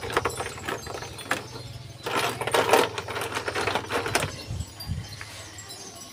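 Ice cubes clinking against each other and the plastic water tank as they are dropped in and shuffled by hand, with a busier stretch of clattering in the middle. A steady low hum runs underneath.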